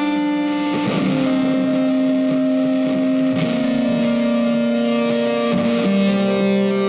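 Background music: a guitar playing long, sustained notes through effects, the pitch moving every second or so.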